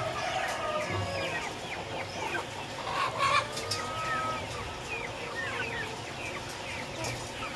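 A flock of Indio Gigante chicks peeping continuously, many short, high, falling chirps overlapping, with a louder, lower chicken call about three seconds in.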